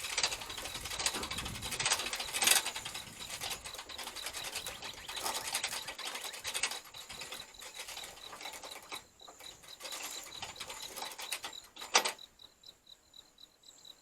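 Hand winch of a truck bed crane being cranked to hoist a mower deck, its ratchet clicking rapidly under load. A single sharp clack comes about twelve seconds in, and then the cranking stops.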